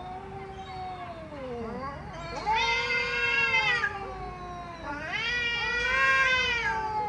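Domestic cat meowing in three long, drawn-out calls. The first is softer and falls in pitch at its end; the next two, starting about two and a half and five seconds in, are louder.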